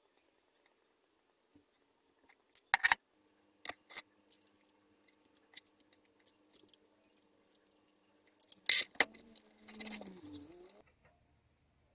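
A run of sharp clicks and snips from small hand tools at work, like cutting or crimping. The two loudest clacks come about three seconds and about nine seconds in, with lighter ticks scattered between them.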